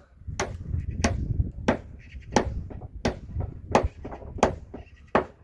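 A hand tool striking wood in steady, evenly spaced blows, about three every two seconds.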